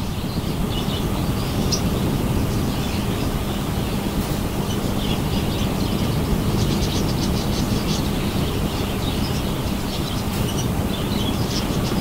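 Caged budgerigars twittering in scattered short chirps over a steady low rumble and hum.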